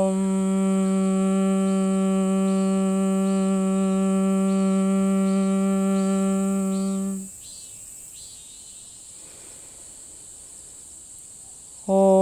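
A woman chanting a long 'Om' on one steady pitch, closing to a hummed 'mmm', which stops about seven seconds in. After a pause of several seconds she begins the next 'Om' at the same pitch near the end.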